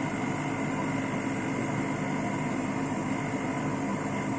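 Electric fan running steadily, blowing air to cool a circuit board just after hot-air desoldering.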